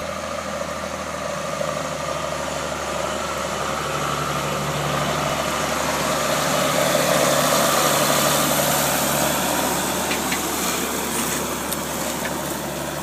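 Diesel engine of a large John Deere four-wheel-drive tractor pulling a disc harrow, growing louder as it passes close by near the middle and easing off after. A few sharp clicks near the end.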